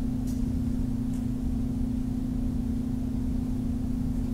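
Steady low electrical hum with a low rumbling hiss beneath it: the background noise of the recording setup.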